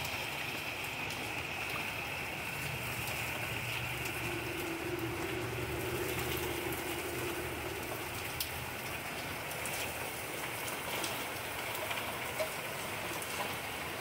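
Steady flash-storm rain falling on a backyard garden and patio, with a few sharper nearby drop hits in the second half.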